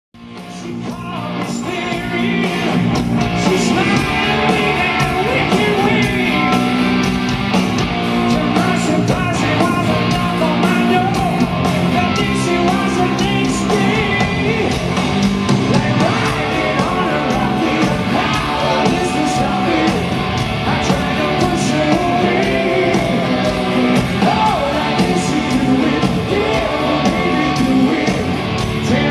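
Hard rock band playing live, a man singing over electric guitar and the band; the sound fades in over the first couple of seconds.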